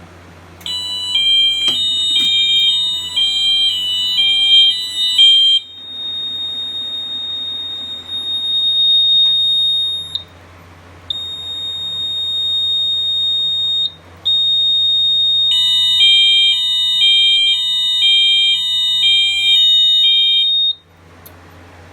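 Fire alarm horn sounding a high-low alternating tone in two stretches of about five seconds each, the system in alarm from a key-activated pull station. Between the stretches a steady high-pitched tone sounds with two short breaks, and all of it cuts off about a second before the end.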